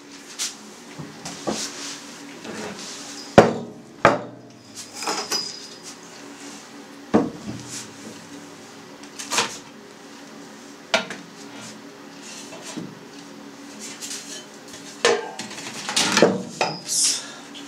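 Scattered knocks and clatters of a home cheese press being taken apart: its wooden pressing board lifted off and stainless steel trays handled. One sharp knock about three seconds in is the loudest, and a run of metal clattering comes near the end.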